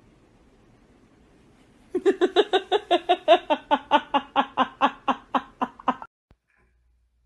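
A rapid run of about twenty short, pitched vocal pulses, roughly five a second, lasting about four seconds. The pitch rises in the middle before the sound cuts off abruptly.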